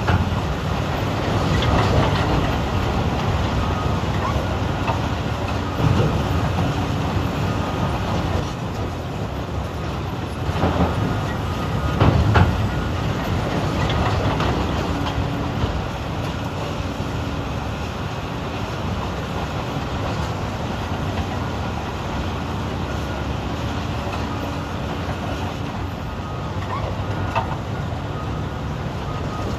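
Heavy diesel machinery working: Caterpillar 395 hydraulic excavators and haul trucks running steadily with a constant mechanical clatter, and rock crashing into a haul truck's bed several times, loudest about twelve seconds in.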